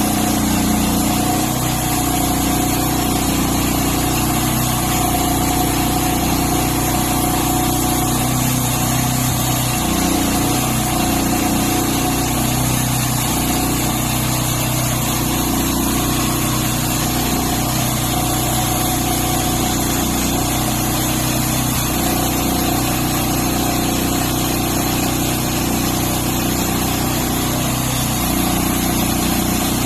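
Engine of a homemade sawmill running steadily at an even speed, with small shifts in its pitch now and then.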